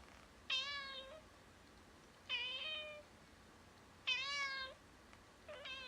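A cat meowing: three clear meows about half a second each, spaced roughly two seconds apart, then a shorter, fainter meow near the end.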